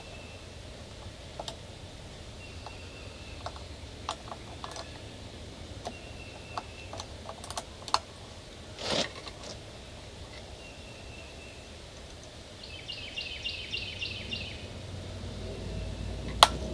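Small hand tools, a wrench and a screwdriver, clicking and tapping against the metal ignition-timing linkage and its adjusting screw on a Yamaha 40 hp two-stroke outboard. The clicks are scattered and light, with a short soft rush of noise about nine seconds in and a quick run of fine, evenly spaced ticks around thirteen seconds in.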